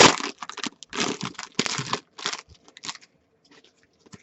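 Trading-card pack wrapper crinkling and cards being handled, in quick rustling bursts for about two seconds, then a few light clicks that fade.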